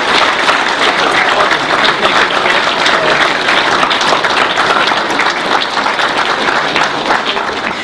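Audience applauding: a roomful of people clapping steadily, easing off slightly near the end.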